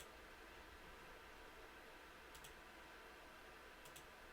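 Near silence with faint room hiss, broken by a few faint computer mouse clicks: one about two and a half seconds in and a quick pair near the end.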